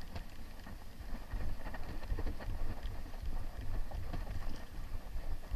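Wind buffeting the microphone: an uneven low rumble, with a few faint ticks over it.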